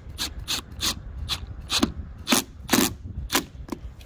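Cordless drill driving a screw through an RV's fibreglass front cap into the steel framing behind it, in a series of short, irregular bursts.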